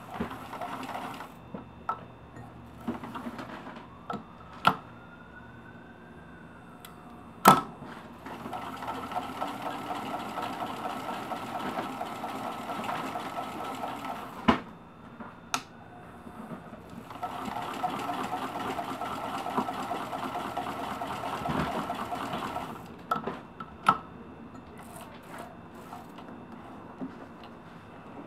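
Singer 15-91 electric sewing machine stitching fabric in two runs of several seconds each, a fast, even needle-and-feed chatter. A faint rising whine comes as the motor speeds up before each run. A few sharp clicks come between the runs, the loudest just before the first run.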